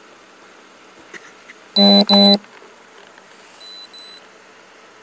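Electronic beeps: two loud, steady beeps back to back about two seconds in, then a fainter pair of short high beeps about a second and a half later.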